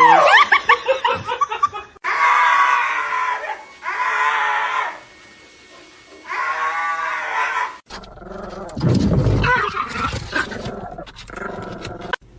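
A dog giving long, drawn-out whining calls: three in a row, each a second or two long, with a falling cry just before them. After about eight seconds they give way to a lower, noisier stretch of mixed sound.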